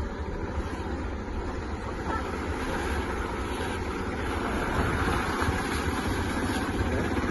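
A car driving through a flooded street, its tyres ploughing and splashing through the floodwater over a steady low rumble of engine and road.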